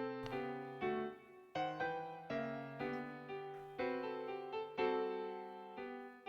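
Background music: a piano playing a gentle melody, the notes struck and left to ring and fade.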